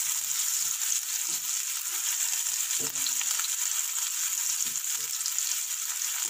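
Chopped onion sizzling in hot oil in a nonstick kadhai, stirred with a wooden spatula: a steady frying hiss with soft scattered scrapes and taps of the spatula on the pan.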